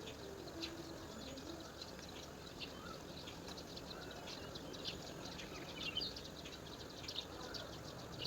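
Birds chirping: many short, high chirps scattered throughout, over a steady background hiss.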